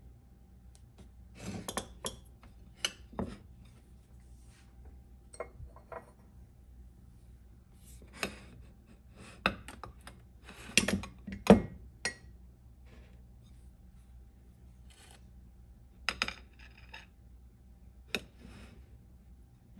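Plates, a glass mug and a small dish with a spoon being set down on a wooden cutting board: scattered clinks and knocks, the loudest cluster about eleven seconds in.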